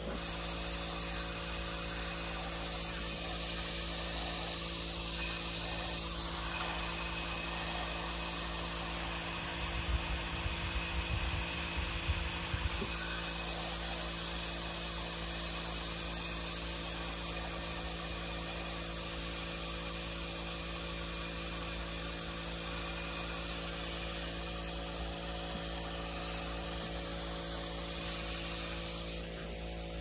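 PCS-150 single-voltage powder coating gun spraying: a steady hiss of powder and air over a constant electrical hum.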